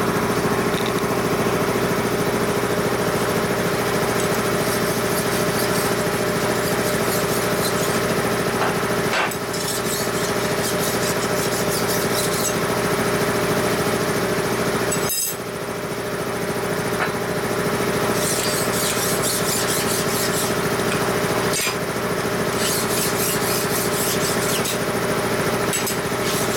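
A steady mechanical hum from shop machinery running throughout. Over it come two runs of quick scratchy strokes of a hand file on steel, one in the first half and one in the second.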